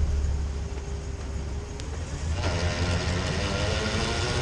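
Pickup truck's transfer case grinding, heard inside the cab over the steady engine and road rumble; the grind comes in about two and a half seconds in. Heard in two-wheel drive as well as four, it is typical of a broken snap ring on the transfer case output shaft, which lets the shaft slide in and out so the gears no longer mesh properly.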